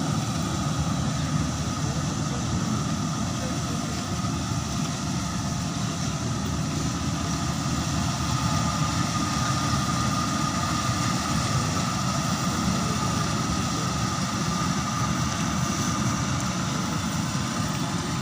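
Combine harvester running steadily, a heavy engine drone with a thin steady whine above it.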